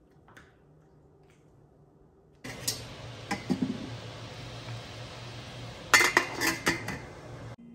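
Stainless steel steamer pot and its metal lid clinking and clanking as the lid is set on, with a few clinks about three seconds in and a loud cluster of clanks about six seconds in, over a steady hiss that starts suddenly midway.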